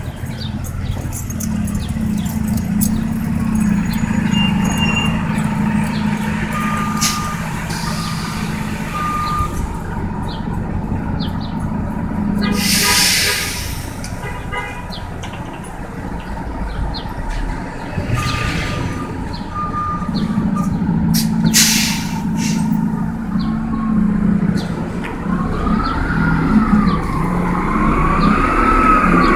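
Orion VII second-generation CNG transit bus running at a stop, its engine humming steadily, with two short runs of beeps and two loud bursts of air hiss. Near the end the engine whine rises and falls as the bus moves off.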